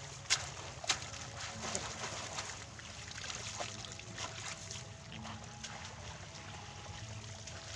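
Water splashing and sloshing as a person wades in a flooded field and pulls peanut plants out of the wet mud. There are two sharp splashes near the start, then scattered smaller ones over a low steady rumble.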